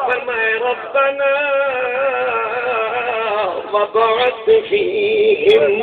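A man singing a verse unaccompanied, holding long drawn-out notes that waver up and down in pitch, then moving into shorter phrases about halfway through.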